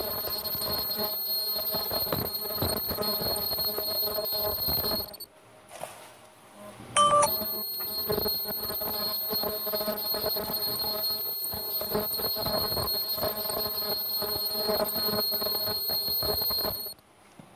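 TC-100 ultrasonic lace sewing machine running: a steady high-pitched whine over a mechanical hum as it cuts a flower lace pattern into artificial leather. It stops about five seconds in, starts again with a sharp click about two seconds later, and stops near the end.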